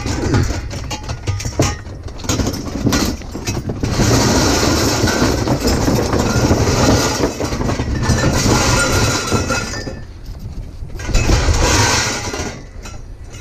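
Steel trampoline frame tubes and springs clanking, rattling and scraping against each other as they are hauled and loaded. Sharp knocks come first, then a long stretch of steady metal clatter, then one more loud burst near the end.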